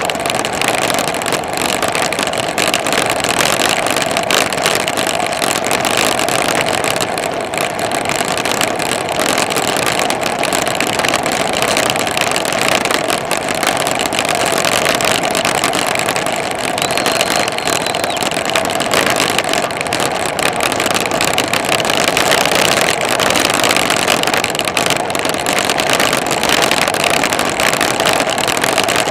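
Loud, steady rush of wind over a handlebar-mounted camera on a bicycle riding fast along a paved road, with road noise mixed in.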